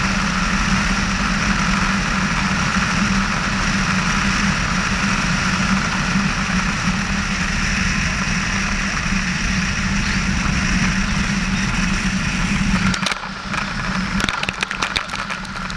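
Piper PA-18-150 Super Cub floatplane's four-cylinder Lycoming engine running steadily on a low approach over water. About thirteen seconds in the engine sound drops away, and the floats touch down on the water with a crackling, hissing rush of spray.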